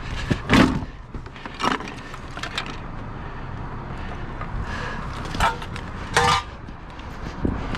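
Street traffic ambience with a steady background rumble, broken by several short knocks and clicks, a few of them with a brief squeaky edge.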